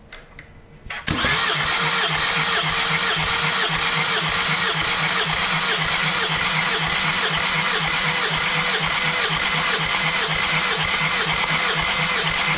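Starter motor cranking a Hyundai D4HB 2.2-litre four-cylinder turbodiesel for a compression test on cylinder one. It cuts in about a second in and turns the engine over steadily, with an even rhythmic pulse as the cylinders come up on compression, while the gauge builds to 24 bar.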